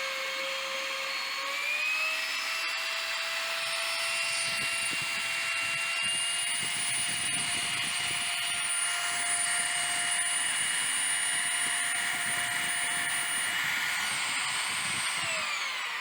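CNC router spindle running with a steady high whine while its bit cuts MDF, with a rougher cutting noise under it. The whine steps up in pitch about two seconds in, and near the end it falls away as the spindle winds down.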